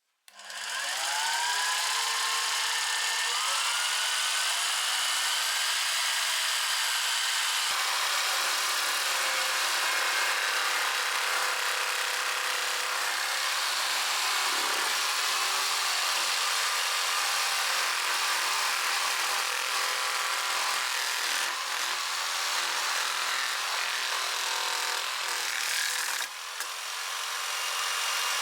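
Jigsaw mounted under a jigsaw table starting up with a rising whine, then running steadily as its blade saws through wood; it gets a little quieter near the end.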